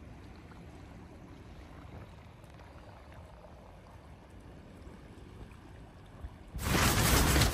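Faint low wind rumble with water lapping at the rocks. About six and a half seconds in, it cuts suddenly to loud heavy wind gusting and buffeting against an ultralight tent.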